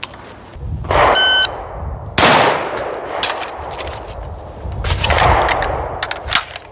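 A shot timer beeps, and about a second later a Rock River Arms CAR A2 carbine fires a single shot that rings on. This is followed by a few seconds of rifle handling noise and small clicks as a magazine is changed for a reload.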